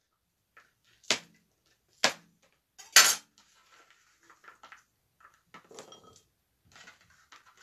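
Kitchen knife chopping on a cutting board: three sharp chops about a second apart, then softer scraping, rustling and light clinks as the cut pieces are gathered up.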